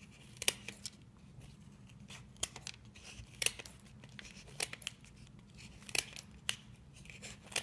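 Kitchen scissors snipping the spiky tips off artichoke leaves: short sharp snips about once a second, several in quick pairs.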